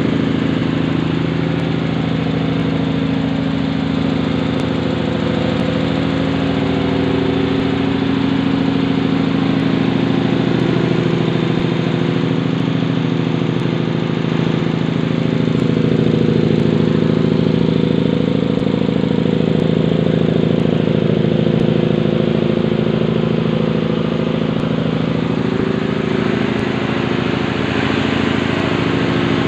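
Tanabe HC-277A marine main air compressor, a reciprocating piston compressor driven by an electric motor, running steadily on a test run: a loud, even mechanical hum and clatter at a constant pitch.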